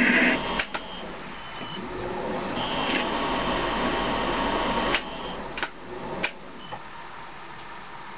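Metal lathe running with its four-jaw chuck spinning during the screw-cutting of an M19×2 thread. A louder high cutting noise stops just after the start. Several sharp clicks follow, and the running sound drops about six seconds in as the spindle stops.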